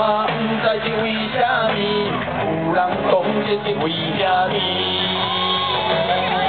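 Live music played through a stage PA: a man singing over a band backing.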